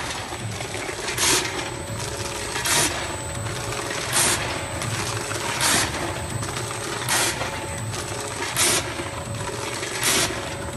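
Automatic vertical form-fill-seal packing machine running, a steady hum broken by a short burst of noise about every one and a half seconds, one per bag cycle as the jaws seal and cut each bag.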